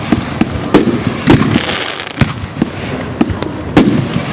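Aerial firework shells bursting in an irregular barrage, about two sharp bangs a second, with a rumble and hiss of the display in between.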